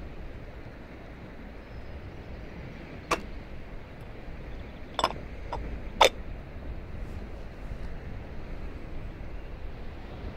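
Cast-iron kettle being set on a Trangia stove, metal clinking on metal: one clink about three seconds in, then three more between five and six seconds as the lid goes on, the last the loudest. A steady rushing noise runs underneath.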